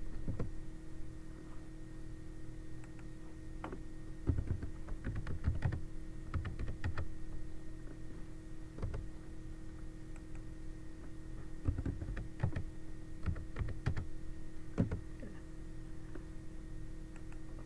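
Keystrokes on a computer keyboard, typed in short irregular bursts with pauses between, over a steady low hum.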